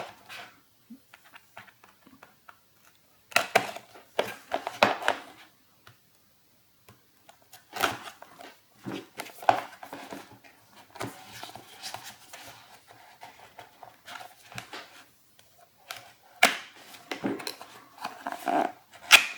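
A cardboard product box being opened and handled by hand: irregular bursts of rustling, scraping and clicks, with short pauses between them.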